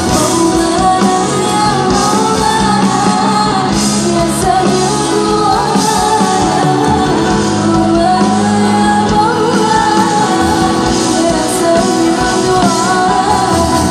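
Live sholawat pop band performance: female singers on microphones over keyboards, bass guitar and drums, with crowd voices shouting along, echoing in a large hall.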